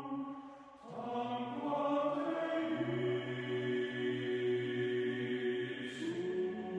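Background music between sung lines: long, held, chant-like vocal tones, several pitches together, fading briefly just before a second in and then moving to a new held chord.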